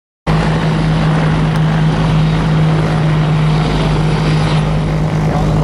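Aircraft engines running: a loud, steady drone with a constant low hum, cutting in abruptly just after the start.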